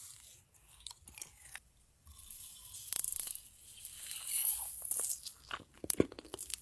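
Crunching and chewing of a mouthful of hamburger with lettuce, crisp crackling bites close to the mouth. The first two seconds are nearly quiet, and the crunching comes in about two seconds in.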